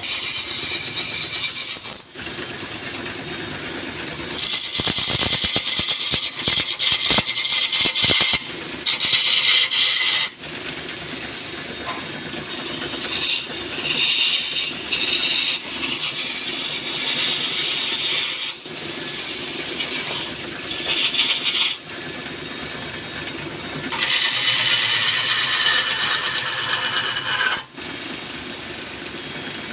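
Wood lathe turning, with a chisel cutting the spinning wood in a high-pitched squeal. The cuts come in passes of a few seconds with short quieter gaps between them.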